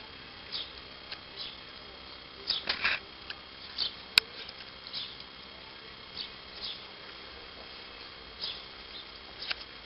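Wild boar piglets giving short, high squeaks at irregular intervals, about one a second, while being bottle-fed, with a louder cluster of squeaks near three seconds in. A single sharp click comes about four seconds in.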